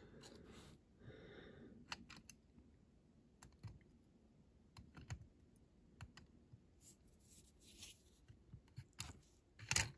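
Faint, irregular small clicks and taps with a few brief rustles: fingers handling and pressing on the parts of a Corgi die-cast toy car during reassembly.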